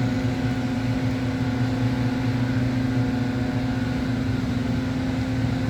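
Steady low mechanical hum, the background noise, holding one even pitch throughout.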